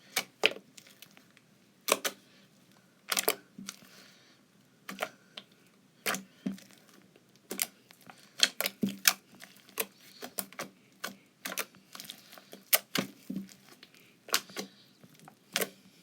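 Homemade slime with small white beads in it being poked and pressed, giving irregular sharp pops and clicks, a couple a second.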